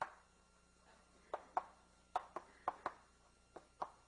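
Chalk knocking against a blackboard while writing: about nine short, sharp taps in uneven clusters.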